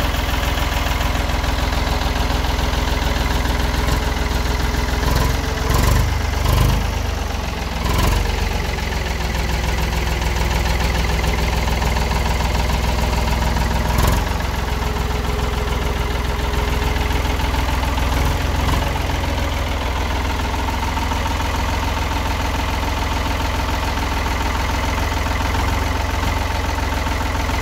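Ford 4610 tractor's three-cylinder diesel engine idling steadily, with a few brief bumps partway through.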